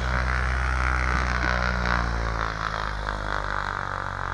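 Light aircraft piston engine running up at high power during pre-takeoff power checks, a steady drone whose pitch drops a little just past halfway.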